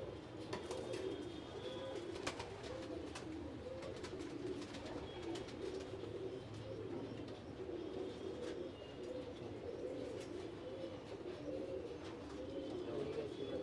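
Many domestic pigeons in a loft cooing together in an overlapping, continuous chorus, with scattered faint clicks and rustles.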